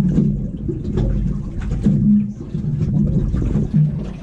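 Small boat on choppy water: a low rumble with scattered knocks, as wind and waves work against the hull.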